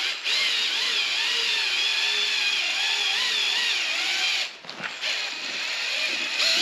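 Power drill spinning a paddle mixing auger through drywall joint compound in a bucket, its whine wavering in pitch. It lets up briefly about four and a half seconds in, then runs again.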